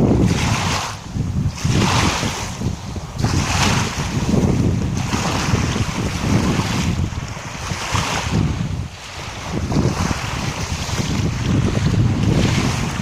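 Small waves on the Gulf of Finland washing and splashing in quick, irregular surges about once a second, with wind buffeting the microphone as a steady low rumble underneath.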